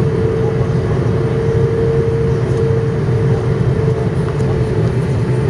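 Steady cabin noise of an Airbus A330 descending on approach: the low rumble of the jet engines and rushing air, with a constant hum on top.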